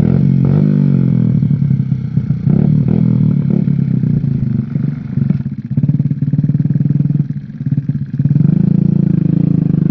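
Motorcycle engine running, its note uneven and dipping in the middle, then steadier and stronger near the end.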